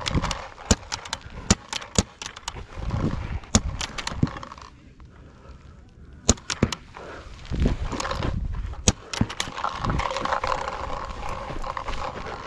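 Paintball markers firing: irregular sharp pops and cracks of shots and of balls hitting the inflatable bunkers, over fabric rustling against the microphone. It goes quieter for about a second and a half in the middle.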